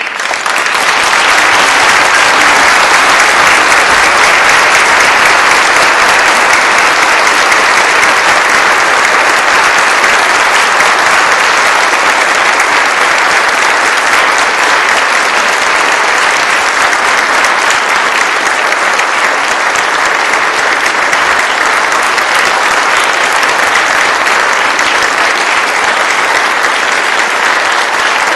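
Audience applauding: loud, sustained clapping that starts suddenly and carries on without a break.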